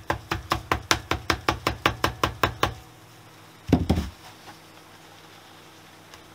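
Rapid light hammer taps, about six a second, on a socket driving a new final-drive oil seal into a Honda CB125S engine case, with the old seal as a buffer. The tapping stops a little under three seconds in, and a single duller thump follows about a second later.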